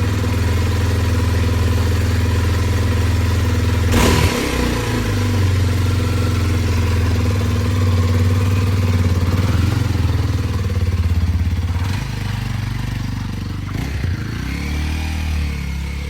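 Kawasaki KLX230's single-cylinder engine idling steadily in neutral, freshly refilled with oil after an oil change. There is a sharp click about four seconds in, and the engine note wavers in the last few seconds.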